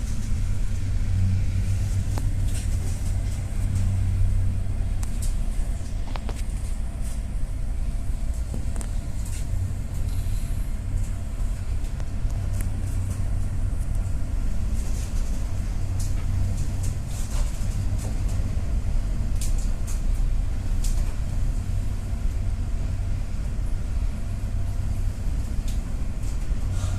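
Ship's engine running with a steady low drone, a few faint steady tones above it, and scattered short clicks or splashes.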